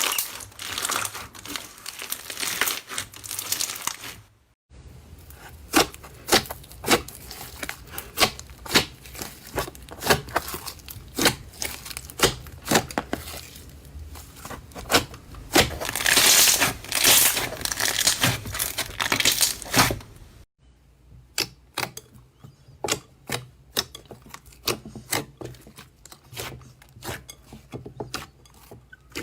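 Slime being squeezed, stretched and poked by hand, giving rapid crackling clicks, pops and crinkles. The sound breaks off abruptly twice and starts again with a different texture.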